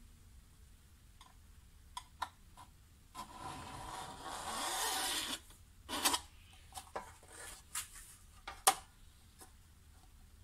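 A long scrape across a thin copper sheet, growing louder for about two seconds, from a tool or straightedge dragged over the metal. It is followed by a few sharp clicks and light taps as the straightedge and marking tool are handled on the sheet.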